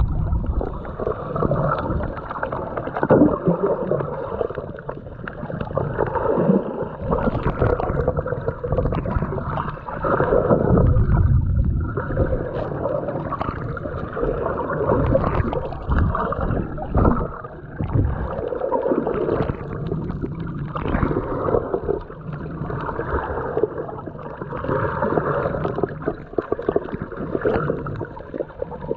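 Muffled underwater sound from a submerged camera: irregular surging and gurgling of moving water, with a few sharp knocks.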